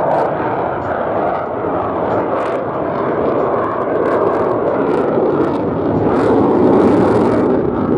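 Loud jet noise from an F-35 Lightning II fighter's turbofan engine as it flies its display, a steady rushing sound that grows louder in the second half.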